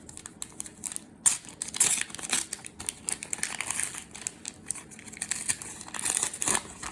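Plastic wrapping of a trading-card pack crinkling and crackling as it is handled, in an irregular run of sharp crackles, the loudest about a second in.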